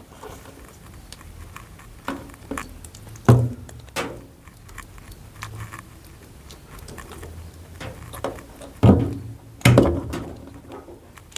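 Plastic housing of a washing machine's control board being handled on a work surface: scattered knocks and clicks, loudest once about three seconds in and twice around nine to ten seconds in, with light rubbing between them.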